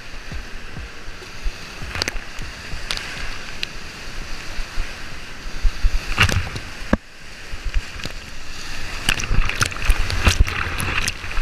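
Whitewater rapid rushing around a kayak at high flow. Irregular sharp splashes come as waves break over the bow and paddle, heaviest in the second half.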